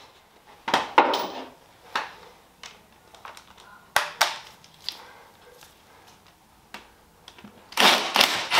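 Scattered clinks and knocks of hand tools on metal, then a cordless power tool starts up briefly near the end.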